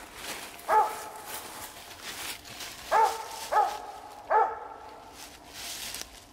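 Walker coonhound barking treed: four short, loud barks, one about a second in, two close together near three seconds and one more after four seconds, the hound's signal that she has a squirrel up the tree. Rustling of dry leaves underneath.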